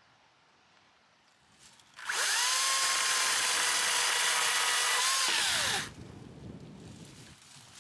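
A power tool's motor spins up to a steady high whine, runs for about three and a half seconds, then winds down.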